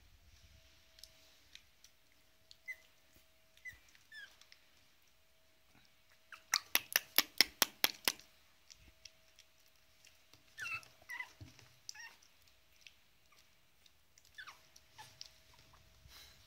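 Pug puppy giving short, high, downward-sliding squeaks now and then while being bottle-fed, with a quick, even run of about ten sharp clicks a little over six seconds in.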